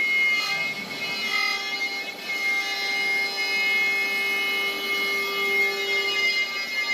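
Shark HD 510 CNC router's water-cooled spindle whining steadily as its small bit carves a wooden board.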